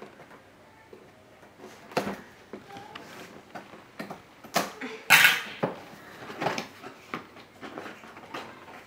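A cardboard toy box being handled and opened: a string of knocks, scrapes and rustles as the box is shifted and its flaps pulled open, the loudest a longer scraping rustle about five seconds in.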